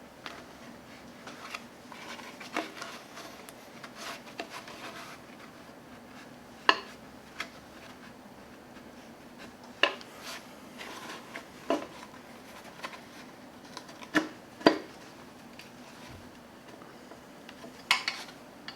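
Hand tools and metal engine parts clinking and knocking at irregular intervals during the teardown of a Gen 4 Hemi's connecting rod and piston. The sharpest knocks come about a third of the way in and twice near the end.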